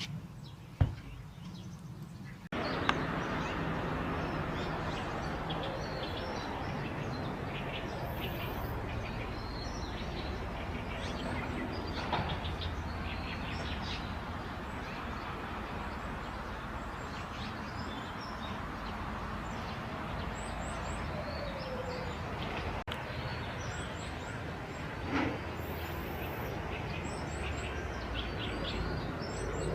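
Azure-winged magpies giving short, scattered chirping calls over a steady background of outdoor noise. The background gets louder suddenly about two and a half seconds in.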